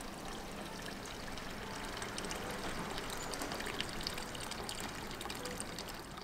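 Water running steadily from a bamboo spout into a stone purification basin.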